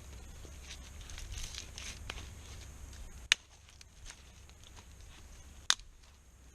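Small sticks being broken and handled as kindling: light crackling and rustling, with two sharp snaps a little over two seconds apart.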